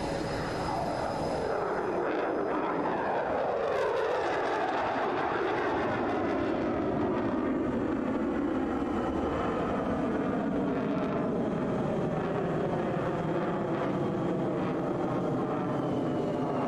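F-22 Raptor's twin turbofan jet engines heard from the ground as the fighter flies its display: a loud, steady rushing noise that sweeps down in pitch over the first few seconds as the jet passes.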